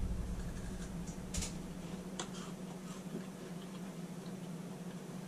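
Faint, scattered clicks and crackles of people chewing a chocolate-coated coconut wafer bar, over a steady low hum.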